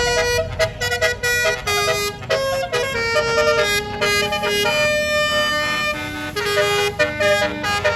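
Telolet basuri multi-tone bus horns playing a tune, note after note in quick steps, with more than one horn sounding at once over a low engine rumble.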